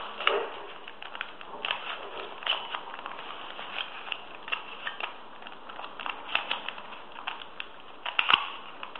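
A 3x3 Rubik's Cube being turned by hand: irregular plastic clicks and clacks of face turns, a few a second, with a louder cluster near the end.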